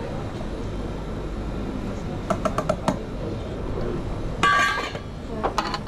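Utensils and food containers clinking and clicking while food is served, with a run of four or five sharp clicks and a few more near the end, over a steady low background hum. A brief, louder higher-pitched sound stands out a little past the middle.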